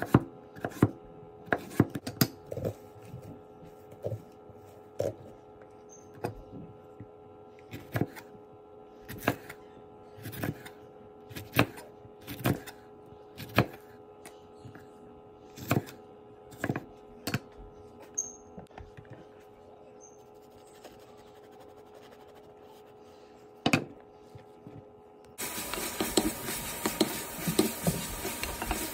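Chef's knife chopping cucumber and jalapeño on a wooden chopping board: sharp knocks roughly once a second, over a faint steady hum. About 25 s in, this gives way to chicken sizzling in a hot frying pan, louder and continuous, with scrapes of a wooden spatula stirring it.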